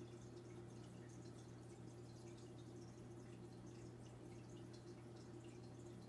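Faint aquarium water sounds: soft, scattered dripping and trickling of water over a steady low hum, typical of a running tank filter or pump.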